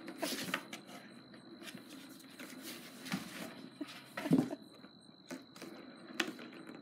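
Light, scattered clicks and rattles of a cat's ball-track toy as a kitten bats at the ball in its plastic ring, with a short louder voiced sound about four seconds in.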